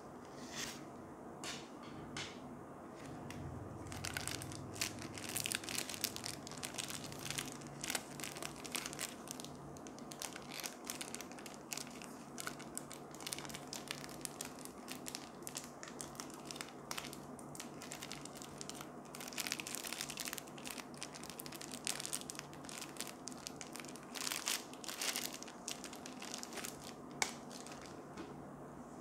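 Thin clear plastic packaging crinkling and crackling in the hands as silicone drinking straws are unwrapped from their plastic sleeves. The crackling comes in denser bursts a few seconds in, again past the middle and near the end, with one sharp snap shortly before the end.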